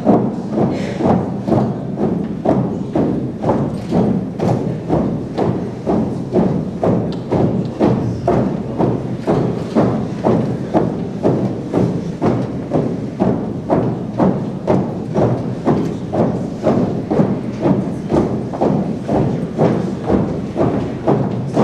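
Drill squad's boots stamping in unison on a wooden stage floor, a steady marching beat of about two thumps a second.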